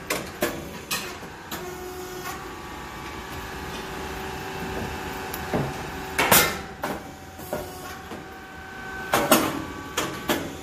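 Shinyoung Mechanics rice cake popping machine running with a steady mechanical hum, broken by several sharp knocks and cracks, the loudest about six and nine seconds in.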